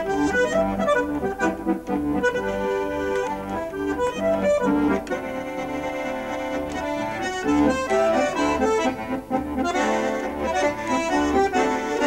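Bandoneon playing a tune: a melody over chords, with regular bass notes underneath.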